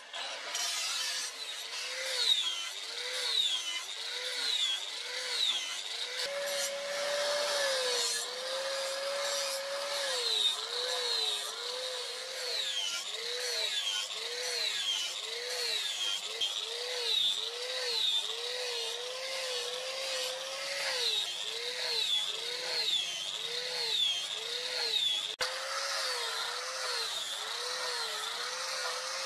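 Electric angle grinder with an abrasive disc grinding a steel knife blade. The motor's whine sags and recovers over and over, about one and a half times a second, as the disc is pressed along the blade in repeated passes.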